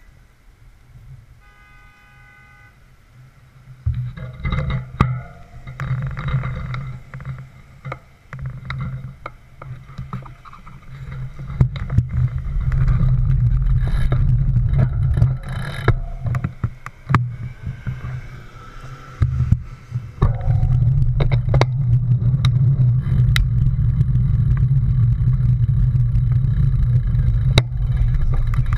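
Street traffic and wind rumbling on a bicycle's handlebar-mounted camera as it rides across a busy intersection, quiet at first and rising sharply about four seconds in, with scattered clicks and rattles from the bike.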